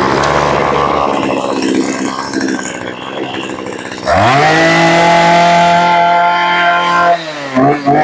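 Maruyama BIG M KC2300B 23cc two-stroke brush cutter engine idling unevenly. About four seconds in, the throttle opens and it rises to a steady high-revving whine, held for about three seconds. Near the end the throttle is let off and the engine is revved again in short blips.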